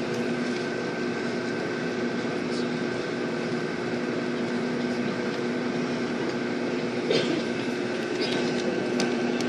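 Steady drone of a vehicle's engine and air conditioning, heard from inside the cabin, with a few faint clicks near the end.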